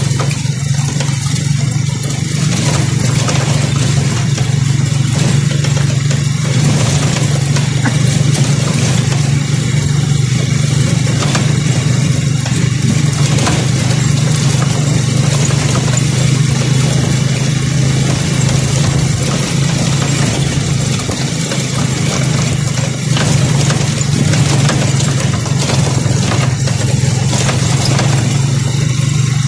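Motorcycle engine running steadily while riding over a bumpy, rocky dirt road. There is a constant rushing noise and scattered knocks from the jolts.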